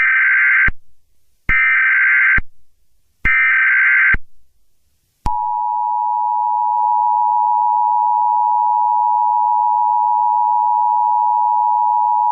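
Emergency Alert System SAME header: three short bursts of warbling digital data tones, about a second each. About five seconds in, the EAS two-tone attention signal starts: 853 and 960 Hz sounded together as one steady, harsh tone.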